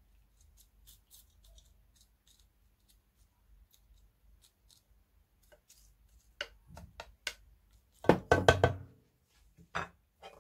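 A spoon knocking and scraping against a bowl and pan as fried onions are tipped out: scattered light clicks, then a quick loud cluster of knocks with a short ring about eight seconds in.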